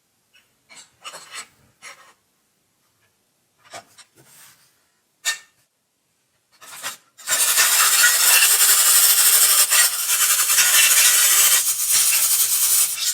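Rubbing and scraping on a surface: a few short strokes, then a loud continuous rasping from about seven seconds in.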